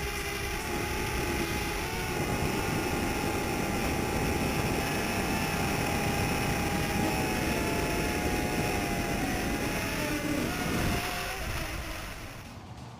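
WLtoys DQ-242 nano quadcopter's tiny motors and propellers whining in flight, the pitch wavering up and down as the throttle changes, over wind rumble on the microphone. Near the end the whine drops in pitch and fades away.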